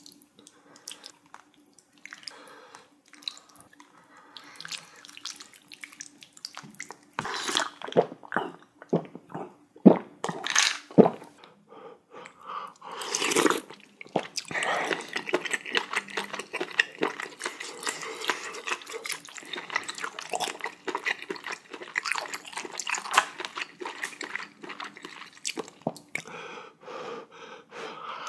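Wet spoon-and-liquid sounds from a bowl of spicy jjamppong broth as rice is mixed into the soup, with sharp clicks of utensils against the bowl, most of them about a third of the way in, then steady sloshing and stirring through the middle.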